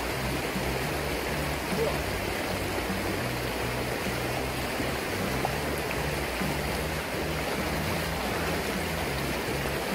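Fast-flowing shallow river rushing over a riffle: a steady wash of running water.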